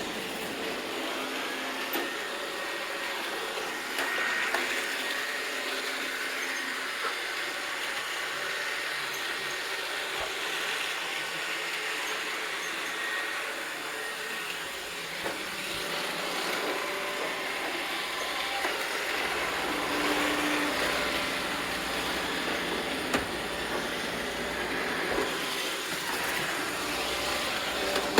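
Robot vacuum cleaner running: a steady whirring of motor and brushes, with a few light knocks.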